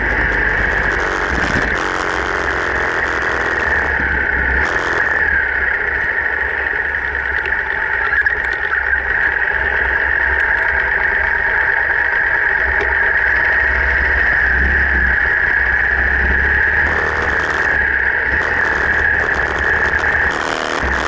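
Harley-Davidson V-twin motorcycle engine running steadily as the bike rides along, mixed with steady wind rush on the action camera's microphone.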